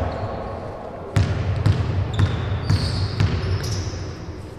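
A basketball bounced on a hardwood court floor, a run of about five or six bounces roughly two a second starting about a second in. A few short high squeaks come in the second half.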